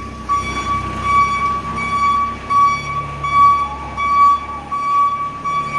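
Warning beeper on a Navigator RT5500 truck-mounted forklift sounding a high, pulsing tone about twice a second while the machine travels, over the low running of its Kubota turbo diesel.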